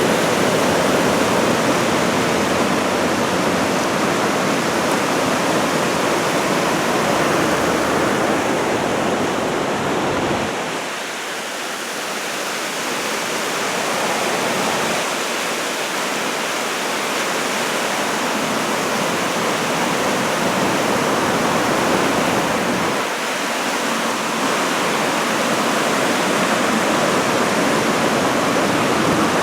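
Ocean surf from an approaching typhoon's swell, breaking and washing on the shore in a continuous rushing noise that eases briefly about eleven seconds in.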